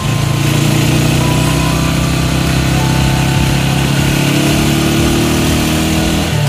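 Vehicle engine running steadily while driving along a road, a low hum whose pitch creeps up slightly and then changes just before the end as a box truck passes close alongside.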